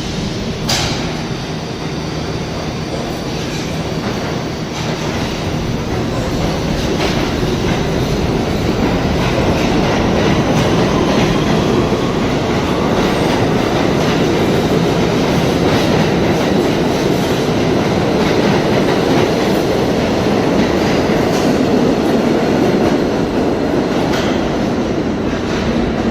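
New York City Subway R68A train running on the track, its rumble growing louder over the first ten seconds and then holding steady, with sharp clicks of the wheels over rail joints now and then.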